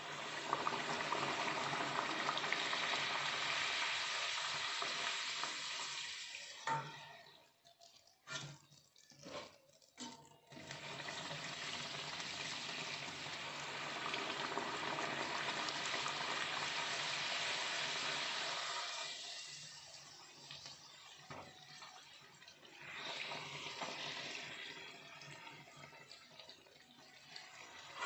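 Puri deep-frying in hot oil in a steel kadai: steady sizzling and bubbling of the oil around the dough. The sizzle breaks off briefly several times about a quarter of the way in, and is quieter in the last third.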